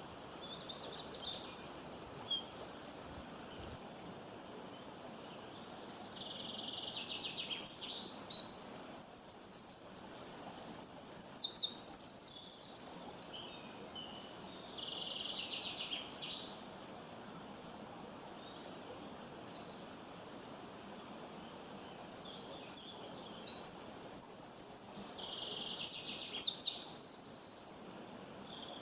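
A songbird singing in three bouts of rapid high chirps and trills, each several seconds long: a short one at the start, then two longer ones, with quiet pauses of several seconds between them. A faint steady background noise runs underneath.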